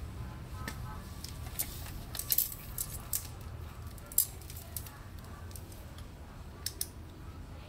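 A clamp meter and its test leads being picked up and handled: a scatter of light clicks and rattles, the sharpest about four seconds in.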